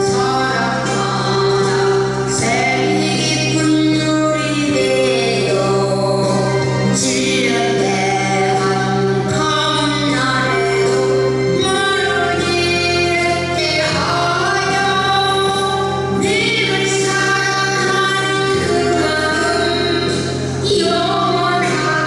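A woman singing a trot song into a microphone over amplified backing music.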